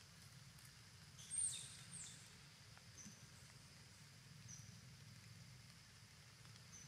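Quiet forest ambience. A short high-pitched call falls in pitch about a second in, and brief faint high chirps recur every second or so over a faint low hum.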